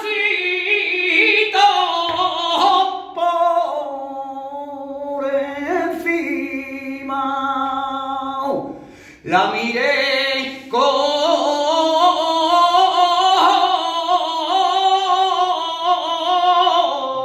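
Male flamenco singer singing a martinete unaccompanied: long, richly ornamented phrases in a single voice, with a short break for breath about halfway before the voice sweeps back up into the next phrase.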